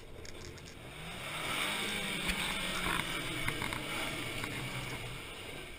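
Pickup truck engine revving up over about a second, then held at high revs as the truck strains on a steep dirt climb, with a few sharp knocks in the middle.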